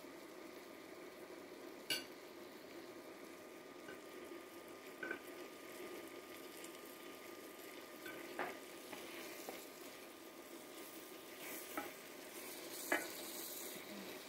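Floured beef chunks sizzling as they fry in butter and olive oil in a pot, a steady crackle. A handful of sharp clicks and knocks come through it.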